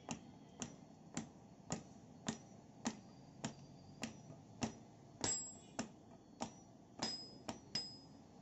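Hand hammer striking a heated iron ring to drive it onto a wooden spade handle: steady blows a little under two a second, a few of them with a short, high metallic ring.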